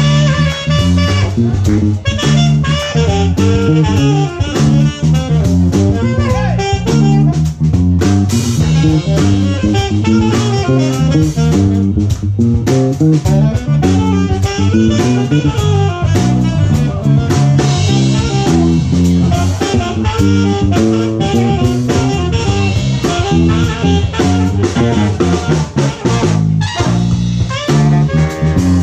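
A live jazz-funk band playing, led by drum kit and plucked guitar and bass lines, with the horns silent.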